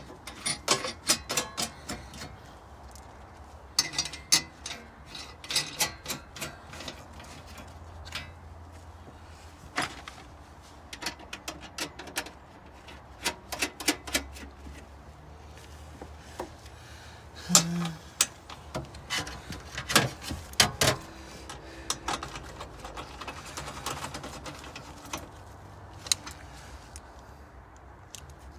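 Hand work on a hybrid car battery pack: scattered sharp clicks, clinks and taps of a socket wrench, metal fittings and wiring being handled and fitted, at irregular intervals, with a few louder knocks in the second half.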